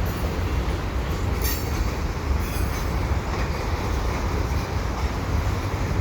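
Freight cars of a long train rolling past: a steady rumble of steel wheels on the rails, with a couple of brief high squeals about one and a half and two and a half seconds in.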